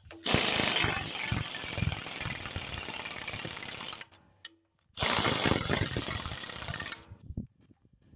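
Air impact wrench hammering engine mounting bolts tight against a tractor frame rail, in two runs: one of about four seconds, then, after a short pause, another of about two seconds.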